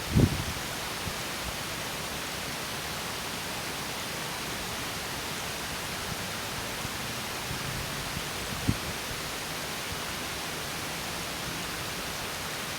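Small stream spilling over a mini waterfall: a steady, even rush of water. A brief low thump comes right at the start and another about nine seconds in.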